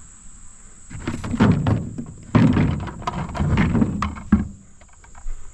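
A run of irregular thuds and scuffs for a few seconds, over a steady high chirring of crickets.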